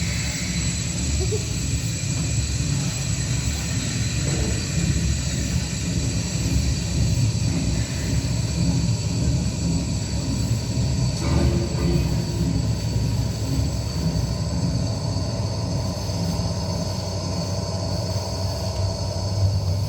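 Steady low rumble with a constant hiss above it, train- or machinery-like, without clear beats or strikes.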